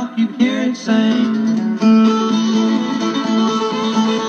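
Guitar music from a broadcast station playing through the small speaker of a restored 1950 Crosley 10-139 AM tube radio, a thin sound with no bass.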